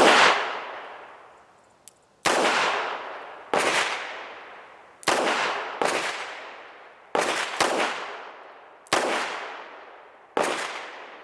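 Charter Arms Undercover .38 Special snub-nose revolver firing about nine shots in quick succession, some close together in pairs. Each shot is a sharp crack with a ringing tail that fades over about a second.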